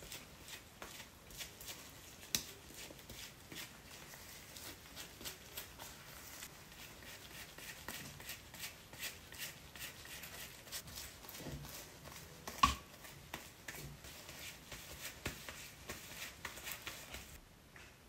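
Faint, irregular rustling and soft clicks from a tint brush working hair dye through wet hair and gloved hands handling the hair, with one sharper tap a little past two-thirds of the way through.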